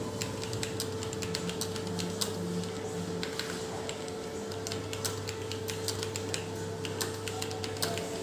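Fast, irregular typing on a computer keyboard: a steady stream of key clicks at about typing-test speed, over a steady low hum.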